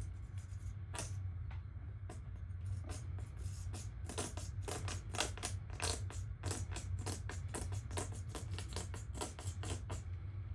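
BTR Stage 3 camshaft, coated in assembly grease, being slid into the cam tunnel of a 5.3 L Gen V L84 engine block: irregular metal-on-metal clicks and scrapes, much denser from about four seconds in, over a steady low hum.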